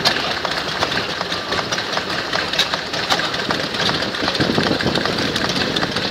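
Steam engine running, its valve gear and motion making a steady clatter of quick clicks and knocks.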